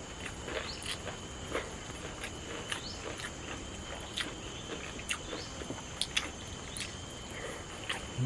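Close-up eating sounds: irregular chewing clicks and wet mouth smacks from someone eating rice and spicy shredded chicken. A steady high insect drone runs underneath.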